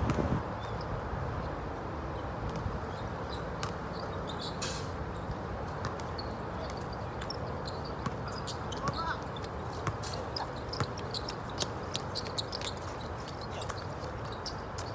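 Basketball court sounds: a ball bouncing now and then in scattered sharp knocks, with a couple of brief squeaks, over steady background noise.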